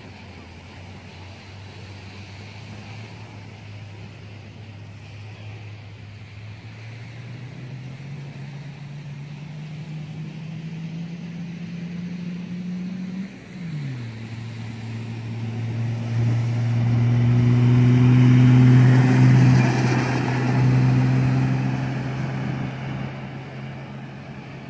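Toyota 4Runner turbo diesel engine pulling hard across sand. The engine note climbs steadily, drops sharply once about halfway through as it shifts up a gear, then climbs again. It grows loudest as the truck passes close by, then fades as it drives away.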